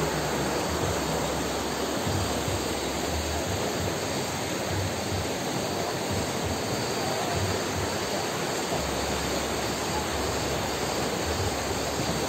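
Fast, shallow river rushing over rocks in a steady rush of water, with an uneven low rumble underneath.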